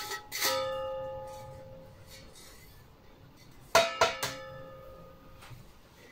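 Stainless steel meat-netting tube clanking against a steel tray. One clank about half a second in rings on and dies away over about two seconds, then two quick clanks come near four seconds and ring on again.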